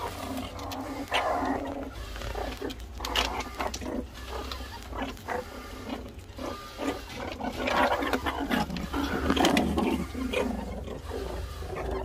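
Meerkats making short, irregular threat calls, an adult warning off the keeper's hand near its newborn pups.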